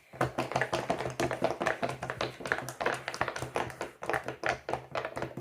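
Silicone pop-it fidget bubbles being pressed down quickly by several players' fingers at once: a dense, uneven run of soft pops and taps.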